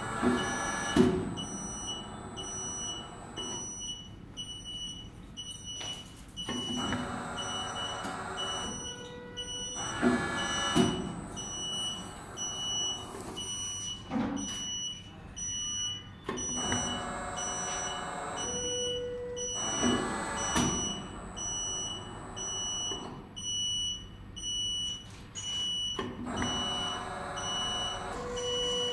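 Hydraulic press-fit machine running through its press cycles. A warning buzzer beeps steadily, about three short high beeps every two seconds, over repeated bursts of hydraulic pump and valve noise as the ram lowers onto the fixture and rises again.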